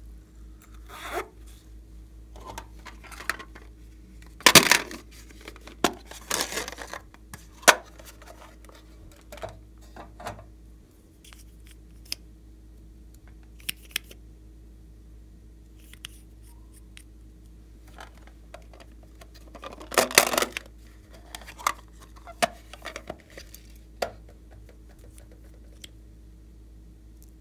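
Hands handling small plastic cosmetic containers, a lip gloss tube and an eyeliner bottle, and a squishy toy over a tray of slime: scattered clicks and rustles, with two longer, louder scratchy noises about four and a half and twenty seconds in.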